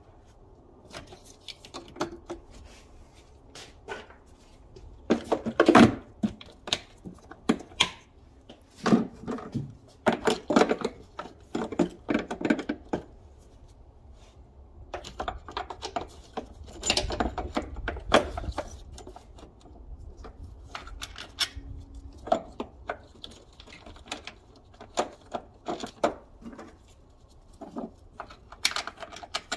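Irregular clicks, knocks and rattles of gloved hands working on plastic engine-bay parts and tools, with the loudest clatter about six seconds in.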